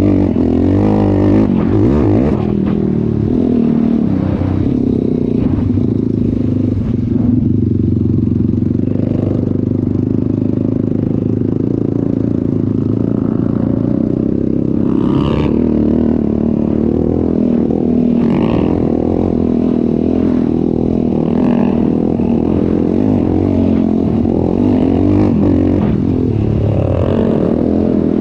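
ATV engine running under way, its revs rising and falling as it is ridden, with some rattle from the machine.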